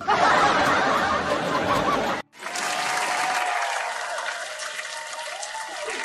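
Canned studio-audience laughter and applause, a laugh track following a joke's punchline. It breaks off sharply about two seconds in, then comes back a little quieter with some wavering voice-like tones until the end.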